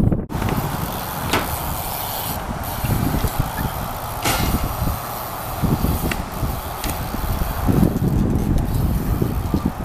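Strong wind buffeting the microphone, a gusty, uneven rumble, with a few sharp clicks scattered through it.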